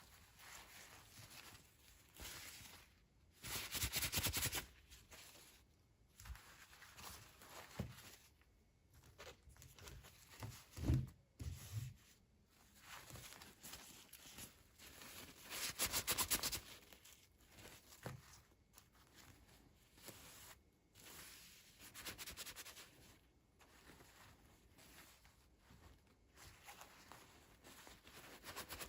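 Toy packaging being handled and torn open, with two louder crackling rips about 4 and 16 seconds in and a soft thump near 11 seconds.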